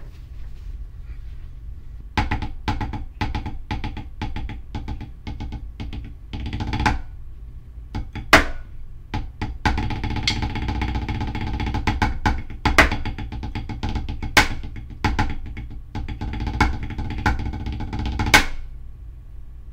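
Marching snare drum played with sticks: a solo of quick strokes and rolls with several sharp accents. It starts about two seconds in and stops just before the end.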